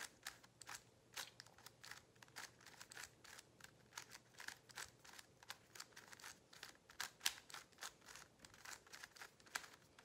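Faint, quick, irregular clicking of a GAN 356 M Lite magnetic 3x3 speedcube as its layers are turned by hand, several short clicks a second.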